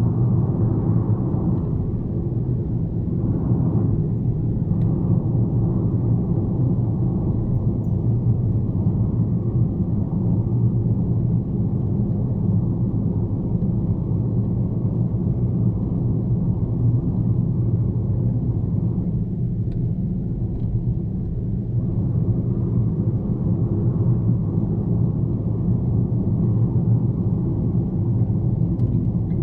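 Car driving on a highway: a steady, low rumble of engine and road noise that holds even throughout.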